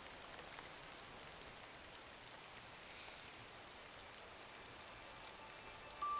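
Soft, steady rain falling, with faint scattered drips. A chiming music note comes in right at the end.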